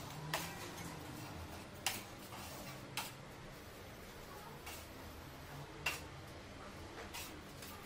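Steel taping knife clicking against a gypsum-board ceiling edge while joint compound is applied: about six sharp clicks at uneven intervals over faint room noise.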